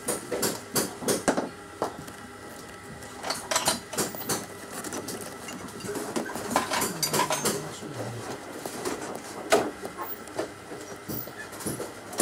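Handling sounds of a leather tote bag as items are slipped into its inner pocket: an irregular run of clicks, knocks and rustles.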